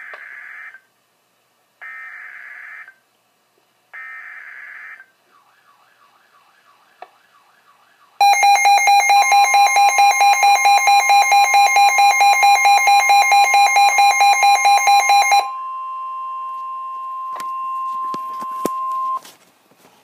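Emergency Alert System warning on a weather radio broadcast. It opens with three short buzzy bursts of SAME digital header data, each about a second long. Then comes a steady alert tone, under which a loud pulsed beeping alarm sounds about four times a second for some seven seconds before stopping, leaving the tone alone until it cuts off near the end.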